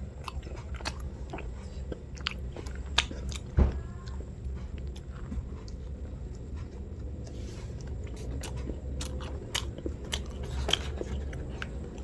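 A man chewing soft sweet bread, with many short wet smacks and clicks of the mouth, and one dull thump about three and a half seconds in.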